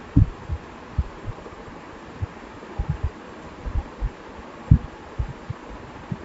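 Irregular soft low thumps over a steady background hiss.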